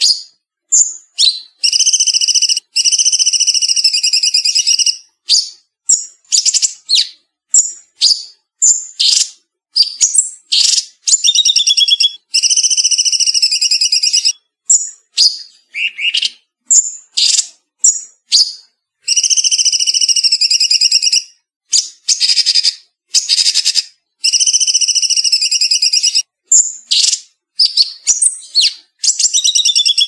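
Cucak cungkok singing a fast, tight song. Quick high chirps alternate with longer buzzy trilled phrases of two to three seconds, and the pattern repeats several times.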